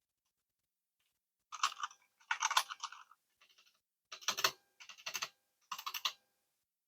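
Typing on a Royal Kludge RK100 mechanical keyboard with brown tactile switches and aftermarket keycaps: six short flurries of keystrokes with brief pauses between them.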